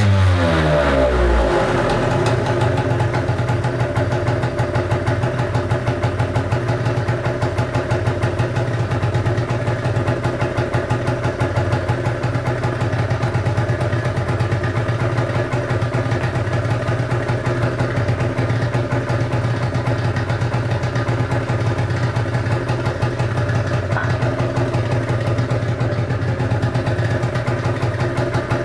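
A 2014 Gilera Runner SP 50 scooter's stock 50 cc two-stroke single-cylinder engine idling steadily. Its revs fall back to idle in the first second or two.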